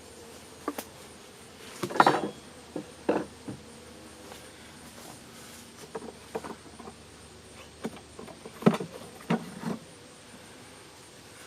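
Irregular knocks and clunks of beehive equipment being handled, the loudest about two seconds in, over a faint steady buzz of honeybees.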